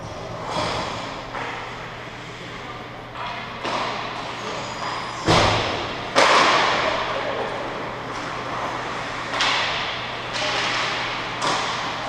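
Ice hockey play in an echoing indoor rink: a series of sharp bangs and knocks from pucks, sticks and players against the boards, each with a long reverberant tail, the loudest two about five and six seconds in. A steady low hum runs underneath.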